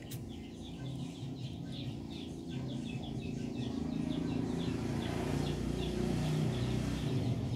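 Rapid, short high chirps of birds, several a second, over a low steady rumble that grows louder in the second half.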